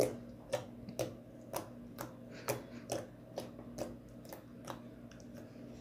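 Homemade flour-and-talc slime being kneaded and pressed by hand, giving off short clicking pops about twice a second: the 'clicky' sound of air pockets popping in the slime.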